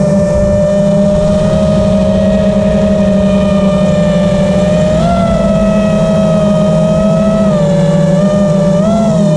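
FPV quadcopter's electric motors and propellers whining steadily as heard from the onboard camera. The pitch jumps up with throttle about halfway through and again near the end.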